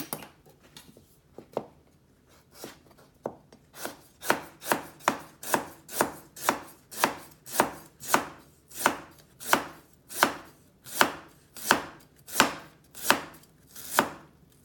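Chef's knife slicing peeled ginger on a plastic cutting board: a few scattered knocks at first, then from about four seconds in a steady rhythm of chops, about two a second.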